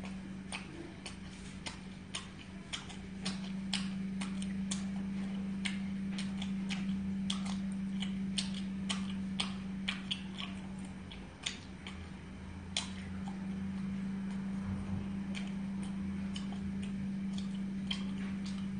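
Irregular sharp clicks and ticks, about one or two a second, over a steady low hum.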